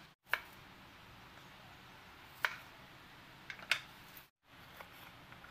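Small red onions being peeled with a kitchen knife on a wooden cutting board: a few sharp clicks and taps of the blade and fingers against the board over a faint steady hiss, with the sound dropping out twice for an instant.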